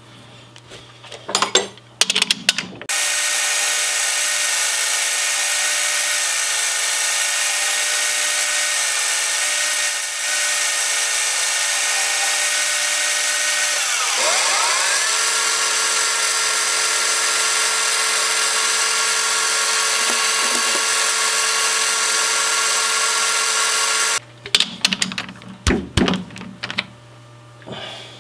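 Metal lathe running under power as a short metal part in the chuck is machined off with an insert tool: a steady mechanical whine with several steady tones that starts about three seconds in, shifts pitch about halfway through and stops a few seconds before the end. Clicks of the part being handled in the chuck before it starts and after it stops.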